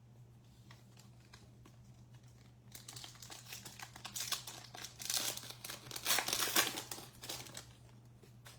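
A trading-card pack's wrapper being torn open and crinkled by hand, the crackling starting about three seconds in, busiest in the middle, and stopping near the end.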